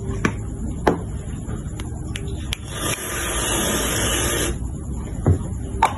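Aerosol whipped-cream can spraying cream onto a drink in a glass: a steady hiss about three seconds in, lasting about a second and a half, after a few light knocks from handling the can.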